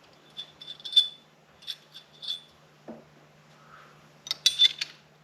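Small metal parts clinking and tapping together, with brief high ringing: a run of light clinks in the first second, a few single ones, then a quick cluster near the end, as fork components are handled during assembly.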